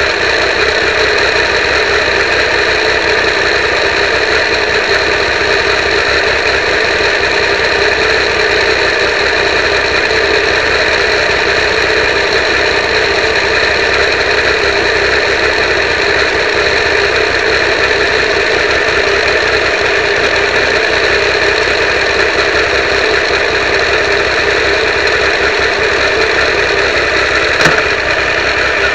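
Triumph 955i three-cylinder motorcycle engine running at a steady speed, picked up as a harsh, poor-quality drone by a cheap keyfob camera mounted on the bike. One brief click near the end.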